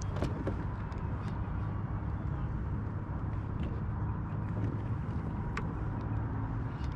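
Steady low rumble of outdoor background noise on the camera microphone, with a few faint clicks.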